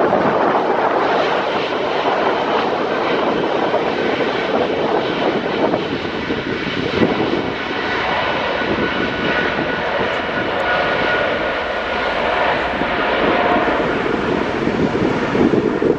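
Boeing 777-300ER's twin GE90 turbofan engines running steadily as the airliner rolls along the ground, a broad jet noise with a faint whine that comes in partway through.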